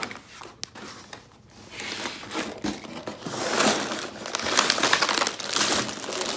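Cardboard Lego box being tipped and its contents slid out, with sealed plastic bags of Lego pieces crinkling and clicking against each other. The rustling is faint at first and grows fuller from about two seconds in.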